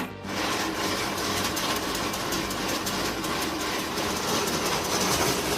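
Wood-processing machine running, with a steady, dense clatter of rapid knocks.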